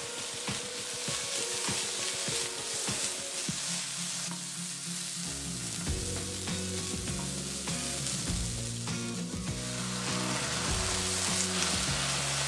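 Julienned potato and carrot sizzling in oil in a nonstick wok, stirred with a wooden spatula that scrapes and taps against the pan. The sizzle grows louder near the end.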